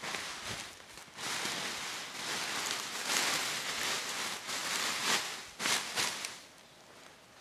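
A large plastic bag crinkling and rustling as it is shoved into a nylon hammock. The noise starts about a second in and is loudest midway, with a few sharper crackles before it dies down near the end.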